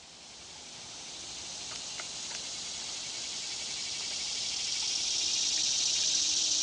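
A high-pitched, insect-like chorus that fades in and grows steadily louder, with a faint click about two seconds in.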